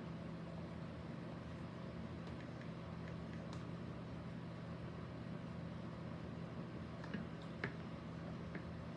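A steady low hum with faint hiss, room and equipment noise, with a few faint clicks in the second half.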